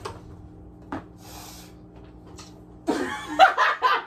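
A person laughing in short bursts near the end, after a single sharp knock about a second in.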